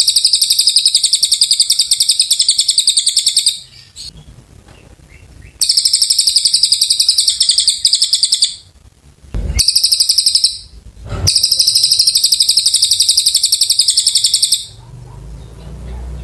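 A cililin songbird singing long, rapid, high-pitched trills in four bursts of a few seconds each, with short pauses between them.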